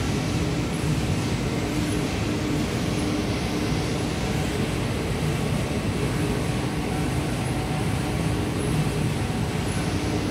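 Steady mechanical rumble and hiss at an even level, with a faint steady hum.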